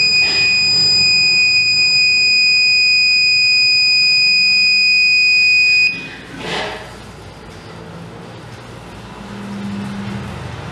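Electronic buzzer on an Arduino air-pollution detector sounding one continuous high-pitched tone, its alarm for a critical gas level. The tone cuts off suddenly about six seconds in as the alarm clears.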